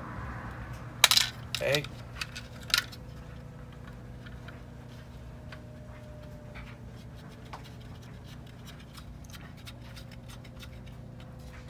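Hard plastic droid part and small brass standoffs clicking and tapping as they are handled: a sharp clack about a second in, another near three seconds, then faint scattered ticks.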